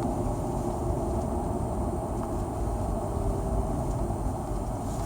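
BMW E39 523i with a ZF 5HP19 automatic gearbox running: steady drive rumble with a faint steady whine in it, the gearbox whine the owner asks about, with no slipping and normal shifting.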